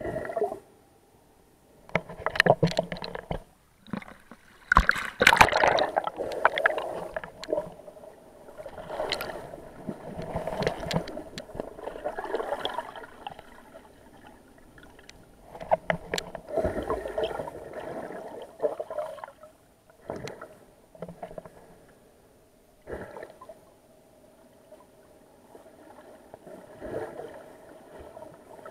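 Water sloshing and gurgling around a camera held underwater by a snorkeler, muffled, in irregular bursts of one to several seconds, with a few sharp knocks among them.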